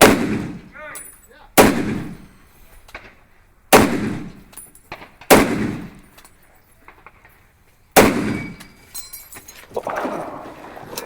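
Five gunshots fired one at a time at an unhurried pace, one and a half to two and a half seconds apart, each with a long echoing decay.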